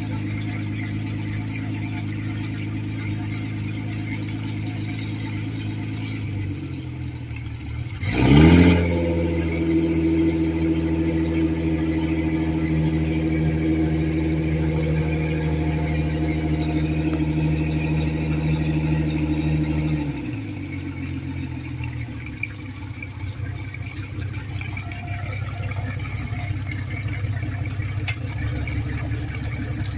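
Suzuki 250 hp four-stroke V6 outboard running after a head-gasket rebuild: it idles, dips, then is revved sharply about a quarter of the way in and held at a fast idle. Near the two-thirds mark it drops back to a steady low idle.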